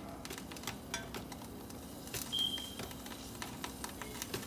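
A utensil stirring melting butter in a stainless steel saucepan, with scattered light clicks and crackling sizzle as water on the hot pan spits. A faint steady hum runs underneath, and a brief high tone sounds about two seconds in.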